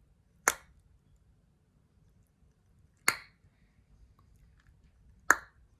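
Three loud tongue clicks, the tongue pressed to the roof of the mouth and snapped down, about two and a half seconds apart. It is a mouth exercise against snoring, where a louder click counts as a better repetition.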